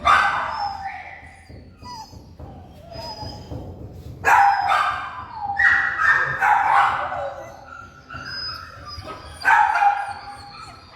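Several dogs barking in kennels in a loud, echoing room, sharp barks coming in bursts every second or two with yips mixed in.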